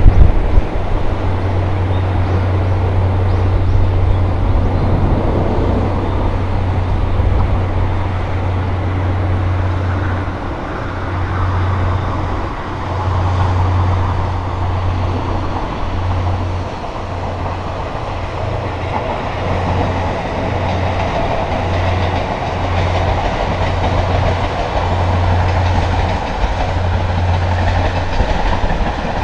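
Steam train passing: the 1946-built C57 class steam locomotive No. 180 hauling its coaches, a steady running noise with a low beat that pulses about once a second from about ten seconds in.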